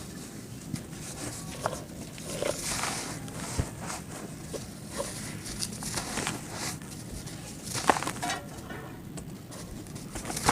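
Lumps of red dirt crumbling and breaking, with irregular soft crunches and gritty crackles and one sharper crack near the end.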